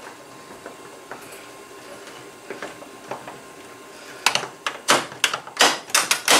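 Garage door lock being worked by hand: faint metal handling clicks, then from about four seconds in a quick run of sharp metal taps as needle-nose pliers knock against the lock's handle plate and pin while trying to seat the pin, which will not line up.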